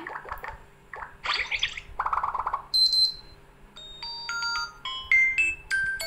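Redmi 10A's built-in ringtones played one after another through the phone's speaker as short previews: two rapidly pulsing sounds, a bright high beep about three seconds in, then a run of brief chiming notes at different pitches.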